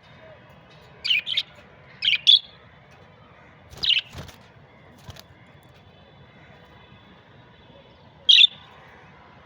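Budgerigars giving short, sharp chirps: two quick pairs in the first couple of seconds, another call about four seconds in and a single loud chirp near the end.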